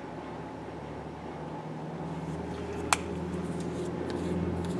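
A low mechanical hum, like an engine, that fades in and grows steadily louder, with one sharp click about three seconds in.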